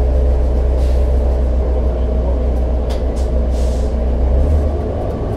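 A New Flyer C40LF city bus's Cummins Westport ISL-G natural-gas engine running with a steady low hum, heard together with steady tones from the bus's machinery. Brief hisses of air come about one second and three seconds in, and the low engine note shifts near the end.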